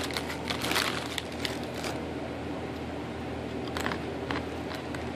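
A person crunching and chewing a pretzel piece from a Flamin' Hot snack mix: a run of crisp crunches over the first two seconds, then a few fainter ones.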